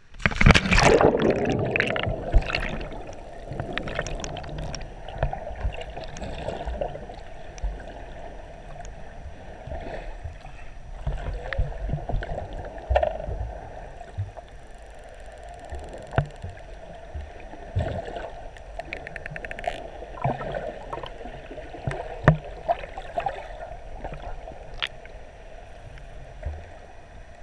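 A splash as the snorkeler goes under, then muffled underwater water noise with scattered clicks, and a short run of rapid clicks about halfway through.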